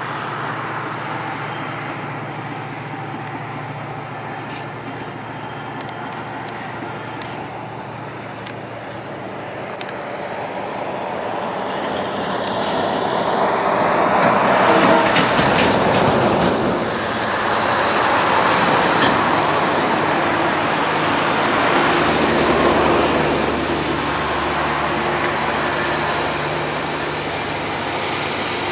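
Diesel locomotive hauling a passenger train past at a distance, with road traffic mixed in. The noise swells to a peak about halfway and eases off, and a low steady engine hum comes in about two-thirds of the way through.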